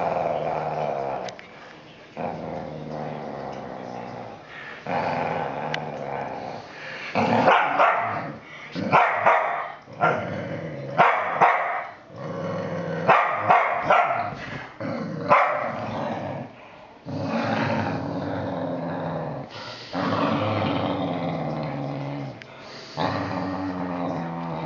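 Two whippets play-fighting, growling at each other in long drawn-out growls. A run of short, louder barks breaks in through the middle before the growling resumes.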